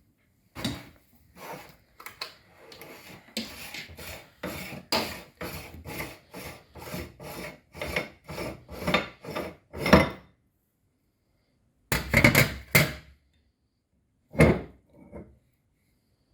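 Meat grinder crushing Orbeez water beads: a rhythmic grinding and squishing, about two strokes a second, growing louder, then stopping. After a pause come a short cluster of strokes and one last brief stroke.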